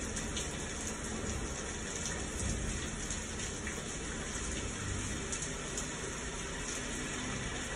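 Recorded thunderstorm soundscape playing: a steady hiss of rain falling, with faint scattered drop ticks.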